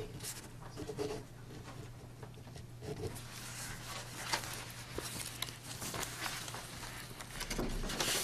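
Quiet small-room tone with a steady low electrical hum, scattered light clicks and rustles from papers being handled at the meeting table, and shuffling movement near the end.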